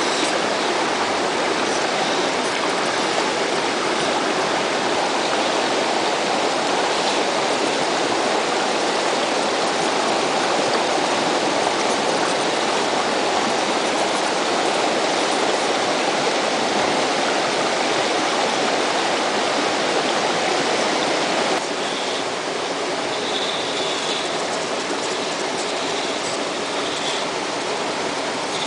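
Steady rush of a flowing river over rocks. About three quarters of the way through it changes abruptly to a slightly quieter, different rush.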